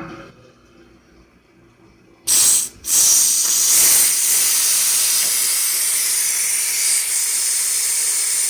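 Power Pressure Cooker XL's steam release valve opened after cooking: a short burst of hiss, then steam rushing out steadily and loudly as the cooker depressurizes.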